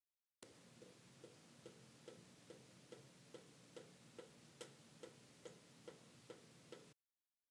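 Water dripping from a chrome faucet into a sink at a steady pace, about two and a half soft drips a second, over a faint low hum. It starts and cuts off abruptly.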